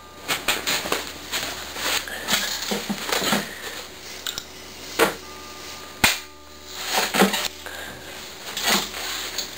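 Handling noise close to the camera's microphone: rustling with a string of sharp clicks and knocks, the loudest two about five and six seconds in, over a low steady hum.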